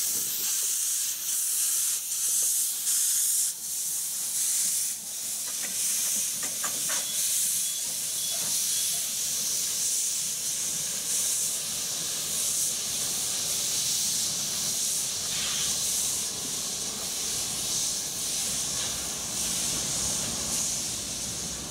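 Blanc-Misseron 020+020 Mallet steam locomotive hissing steam from its open cylinder drain cocks as it moves off slowly. The hiss pulses in the first few seconds, then settles into a steady hiss, with a few sharp clicks about a third of the way through.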